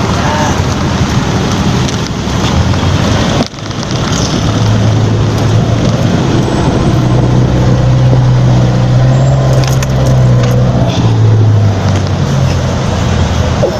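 Road-vehicle engine and traffic noise, steady throughout, with a low engine drone that grows stronger after about four seconds. There is a short drop-out about three and a half seconds in.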